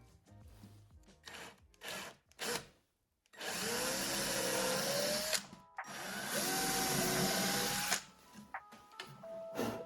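Handheld power drill running in two runs of about two seconds each, its motor whine sliding up and down in pitch as the trigger is worked, after a few short blips.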